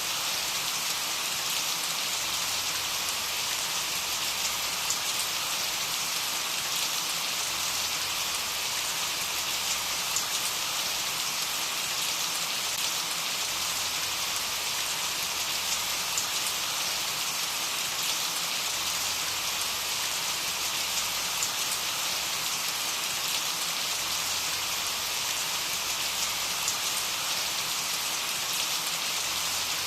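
Steady rain falling on a surface, an even hiss with the patter of many individual drops.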